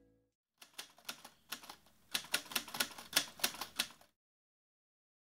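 Typewriter sound effect: a quick, irregular run of key clacks that gets louder about two seconds in and stops abruptly about four seconds in.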